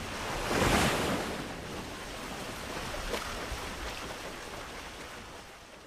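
Wind and choppy sea waves rushing, with wind buffeting the microphone; a loud surge of noise comes about a second in, then the rush slowly fades.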